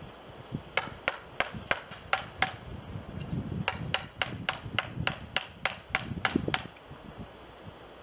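Hammer blows driving a chisel into a wooden tiki post, sharp strikes at about four a second in two runs with a short pause between them, stopping about two-thirds of the way through.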